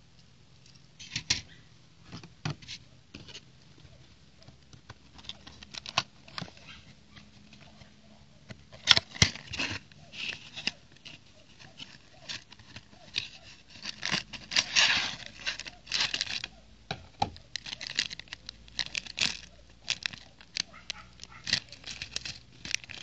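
Handling noise from a plastic brick-toy set: sparse small clicks of the plastic bricks being handled, then a dense run of crackling and scraping as a cardboard box is opened and folded. Near the end comes crinkling from a plastic parts bag.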